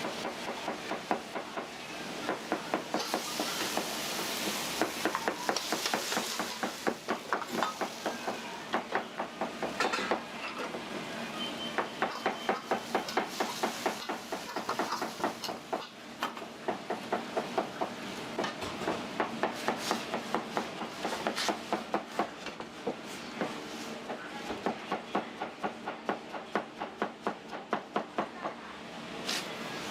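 Metal ladle knocking and scraping rapidly against a wok as rice is stir-fried, with a steady sizzle under it.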